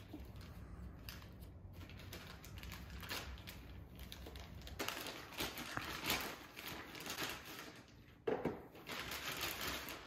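A plastic mailer bag being opened and handled: irregular crinkling and rustling of the plastic, then a small cardboard box being pulled out and handled, with a louder rustle about eight seconds in.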